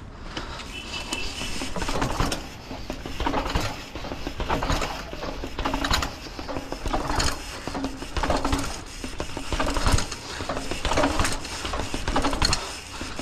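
Mountain bike being ridden over a rough trail: clicking and rattling from the bike's freewheel and drivetrain, swelling in an even rhythm about once a second.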